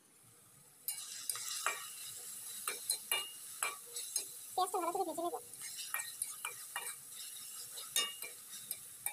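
Sliced onions sizzling in hot oil in a metal wok, starting suddenly about a second in, with a metal spatula stirring and scraping against the pan in repeated clicks. A short wavering tone comes just after the halfway point.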